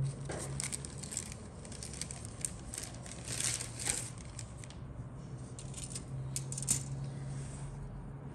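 Grey plastic model-kit sprues and their packaging being handled: light plastic clicks, clatter and rustling, busiest in the middle, over a steady low hum.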